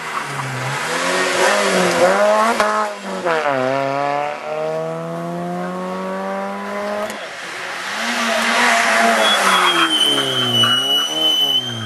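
Suzuki Swift rally cars driven hard through a bend: an engine revs up through several quick upshifts, then after a cut a second engine note falls and climbs again. A high tire squeal sounds for a second or so near the end as the car slides through the corner.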